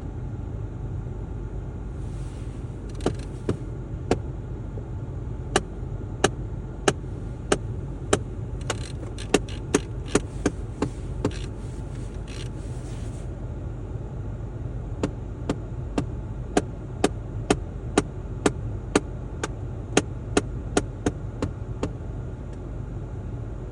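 Sharp, irregular knocking from the heating system of a VW Golf 7, heard inside the cabin: roughly one to two knocks a second, with a short pause about two-thirds of the way through. Underneath is the steady hum of the running car and its heater blower. The knocking comes with the heat turned up and stops when it is turned down.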